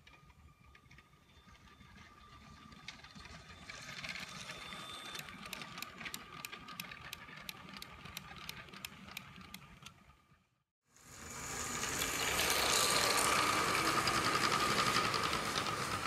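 Lego trains running on plastic track: an electric train motor whines steadily while the wheels click over the track joints in a quick regular rhythm. After a short break about eleven seconds in, a louder, closer rattle of the passing tank wagons and motor.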